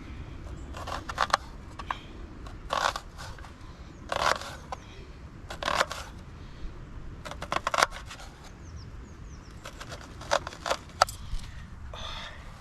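A knife cutting through an onion: a series of short crunchy cuts, irregularly spaced about every second or two.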